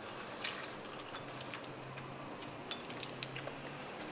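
Metal fork clinking and scraping lightly against a china plate as noodles are twirled and lifted: a few soft, scattered clicks, the sharpest about two-thirds of the way through.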